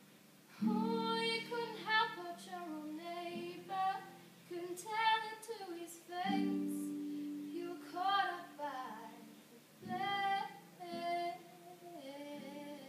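A young girl singing a melody in short phrases over held accompanying chords from an instrument.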